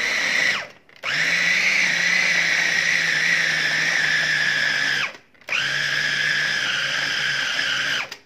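Small electric food chopper running in three pulses as it minces tuna: a steady motor whine that stops briefly about a second in and again about five seconds in, then cuts off near the end.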